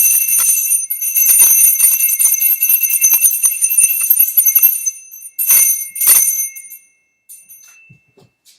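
Timber mountain bike bell ringing continuously, its loose clapper rattling against the bell many times a second over a steady high ring. After about five seconds it stops, then two short rings follow and die away.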